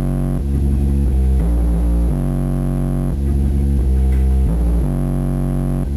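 Bass-heavy music played through two 10-inch Rockford Fosgate Punch Stage 1 subwoofers, heard inside the car, with long deep bass notes changing pitch about once a second. The subs are being broken in at a moderate volume setting.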